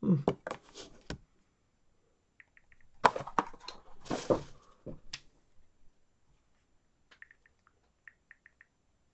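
Trading cards and plastic card holders handled on a table: clicks and rustling in two spells, the second, about three seconds in, the louder. Several faint, very short high ticks follow, about two and a half seconds in and again near the end.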